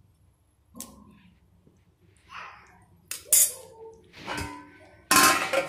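Kitchen utensils clinking and knocking against a nonstick kadhai: a few separate sharp metallic clinks, the loudest a little after three seconds in.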